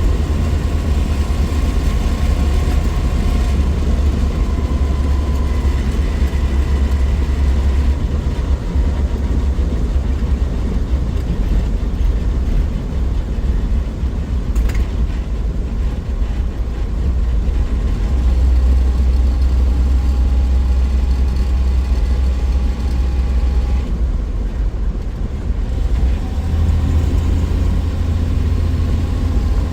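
A 1963 Willys Wagon's 230 overhead-cam Tornado inline-six driving along, with a steady engine drone and road rumble heavy in the low end. A single sharp click comes about fifteen seconds in.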